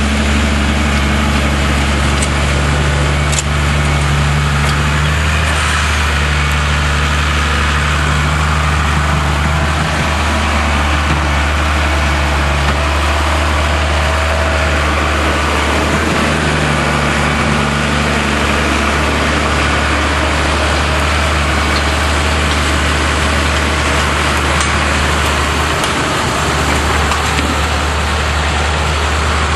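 Tractor diesel engine running steadily, with a continuous low drone and a constant rushing noise over it.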